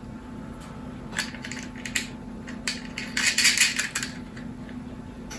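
Small metal parts clicking and clinking as nuts and balance-lead ring terminals are fitted onto a battery's cell terminal studs: a few single clicks, then a quick run of clinks about three seconds in, over a steady low hum.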